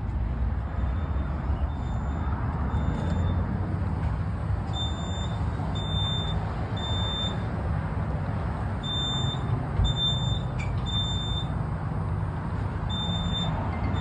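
Kidde conventional fire alarm system's sounder going off in alarm: a high-pitched beep in the temporal-3 evacuation pattern, three short beeps about a second apart, then a pause, repeating. The system is in alarm with no fire, apparently set off by the smoke detector above the control panel. A steady low background rumble runs underneath.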